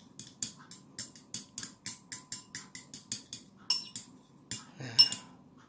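A thin metal stirrer clinking against the inside of a glass as a drink is stirred, with baking soda being stirred in: a quick run of light clinks, about five a second, then a few slower, louder taps that ring briefly on the glass.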